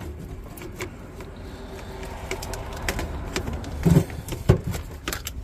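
Clicks and knocks of a cordless drill being handled and brought into place, with two louder knocks a little before and after four seconds in, over a faint steady hum.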